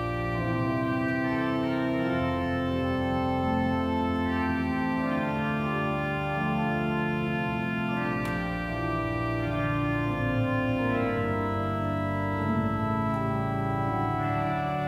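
Church organ playing slow, sustained chords that shift every second or two.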